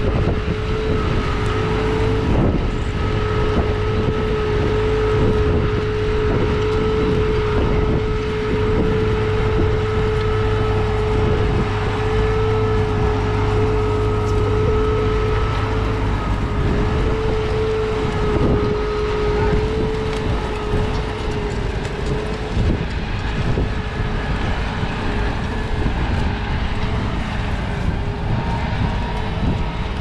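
New Holland T7.315 tractor's six-cylinder diesel running under load as it pulls a seven-furrow plough past, with a steady whine over the engine's rumble; the whine fades out about two-thirds of the way through.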